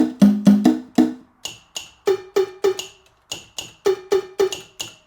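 Linn LM-1 drum machine's conga samples triggered in quick succession: a run of lower-pitched hits, then a longer run of higher-pitched hits, several a second, stopping just before the end.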